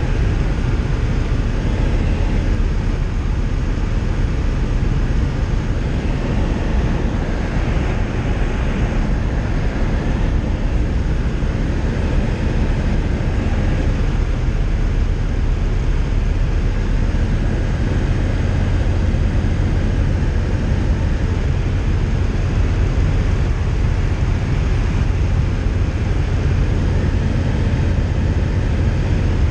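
Tecnam light aircraft's piston engine and propeller running steadily in flight, with rushing airflow, as heard from inside the cockpit: a constant deep drone.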